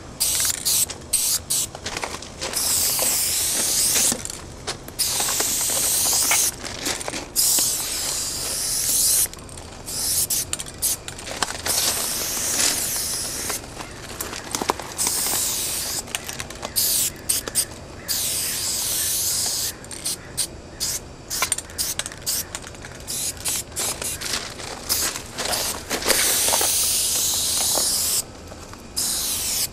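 Aerosol spray-paint can hissing in repeated bursts as graffiti is painted. Some sprays are held for two seconds or so, and many are short quick taps.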